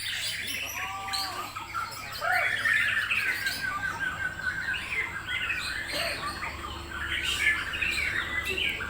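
Murai Borneo (Bornean white-crowned shama) singing a fast, varied song of whistles and chirps, with a quick run of repeated notes about three seconds in.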